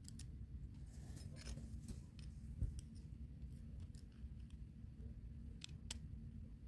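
Faint clicks and handling noise of two worn connecting-rod bearing shells being turned in gloved fingers. There is a sharper click about two and a half seconds in and two more near the end, over a low steady hum.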